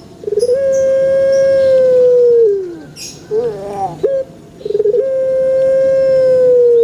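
Puter pelung dove cooing: two long, level calls of about two seconds each, each opening with a quick stutter and sliding down at the end, with short wavering notes between them.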